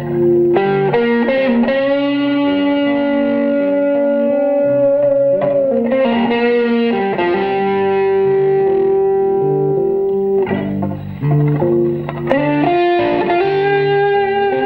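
Electric guitar, a Stratocaster-style solid-body, played with an overdriven effects sound. It holds long sustained notes, some bent slightly, that change every couple of seconds, with lower notes underneath.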